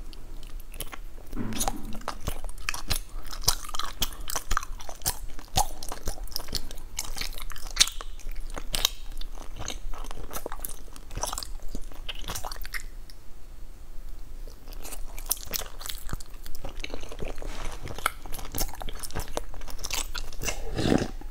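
Close-miked chewing of a sticky glutinous rice cake: a run of short wet clicks and smacks from the mouth, with a quieter lull of about two seconds past the middle.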